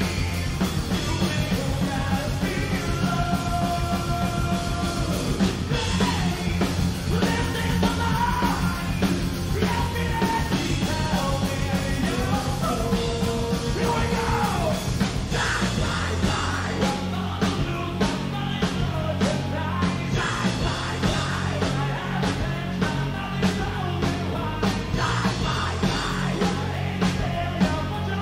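Rock band playing live, with a singer yelling and singing over the music; the drum hits come through more sharply in the second half.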